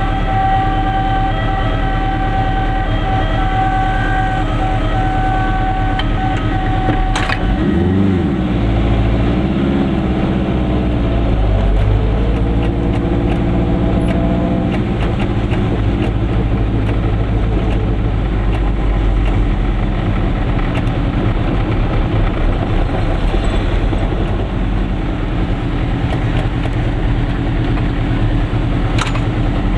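Goggomobil's two-stroke engine running, heard from inside the small car's cabin with a steady low drone. A steady high tone with overtones, like a horn or siren, holds for about the first seven seconds and then stops. After that the engine revs up and eases off several times as the car moves on in traffic.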